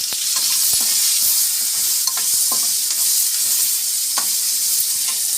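Curry leaves sputtering in hot oil with onion, garlic and tempering spices in a kadai, a steady sizzle with a few sharp clicks as the mix is stirred.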